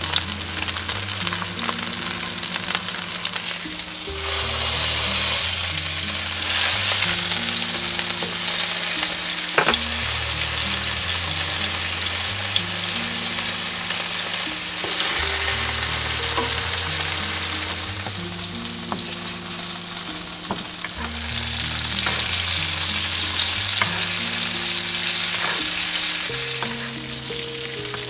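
Salmon fillets sizzling as they fry in hot oil and butter in a nonstick pan, a steady crackling hiss that swells louder a few times. Low sustained backing-music notes run underneath.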